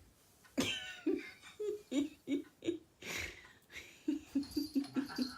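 A person laughing in short repeated bursts, with a breathy intake about three seconds in and a quicker run of laughs near the end.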